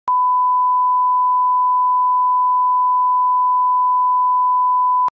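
Steady 1 kHz reference tone, the line-up tone that goes with broadcast colour bars. One pure, unchanging tone lasting about five seconds, switching on and off abruptly with a faint click.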